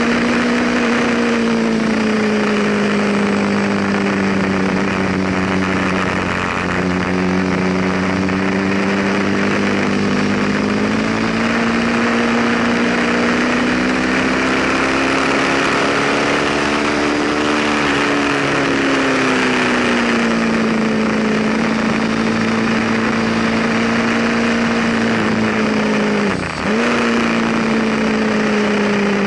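Ducati V-twin sport motorcycle engine running at speed on a track, its note rising and falling gently over a steady rush of wind. About 26 seconds in, the engine note dips sharply for a moment and then recovers.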